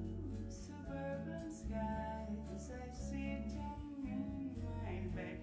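Gentle soundtrack music with guitar and sustained bass notes.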